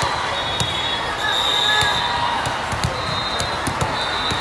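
Busy indoor volleyball gym: steady crowd chatter with scattered sharp knocks of volleyballs being hit and bouncing on the hardwood, and several short high squeaks.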